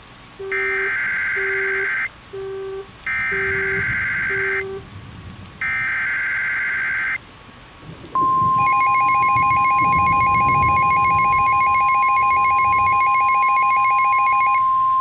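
Emergency Alert System SAME header: three bursts of screeching, warbling data tones, about a second apart, with a few short low beeps under the first two. About eight seconds in, the NOAA Weather Radio 1050 Hz warning alarm tone starts, a single steady high tone, and a buzzier tone joins it half a second later. Together they announce a new warning.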